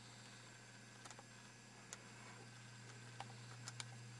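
Near silence: a steady low hum with a few faint, scattered clicks.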